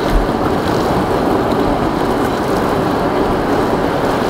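Concrete-printing mortar mixer and pump running steadily as thin mortar pours from the hose into a bucket, with one brief low bump just after the start.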